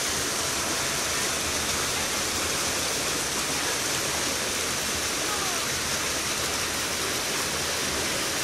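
Water pouring steadily over the step of a concrete fish ladder and churning in the pool below, an even, unbroken rush.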